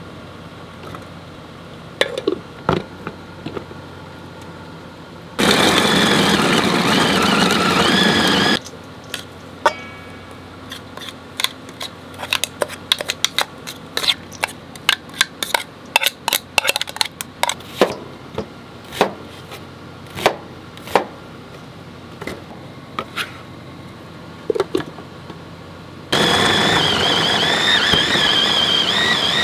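Electric mini food chopper's motor running in two spells of about three seconds, one about five seconds in and one near the end, with a high wavering whine as the blade chops carrots and green onions in the stainless steel bowl. Between the runs comes a clatter of a spatula scraping and tapping against the metal bowls.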